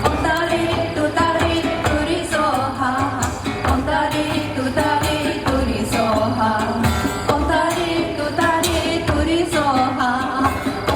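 A woman singing a Tibetan mantra-style melody over a live folk band, with a steady rhythmic beat and a low bass line underneath.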